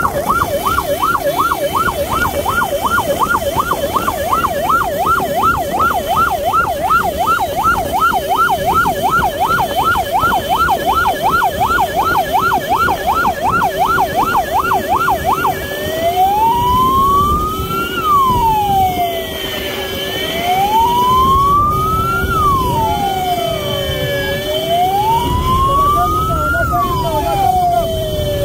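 Electronic siren of a sidecar motorcycle ambulance in a fast yelp of about three sweeps a second. About halfway through it switches to a slow wail that rises and falls every four seconds or so. Motorcycle engines run underneath.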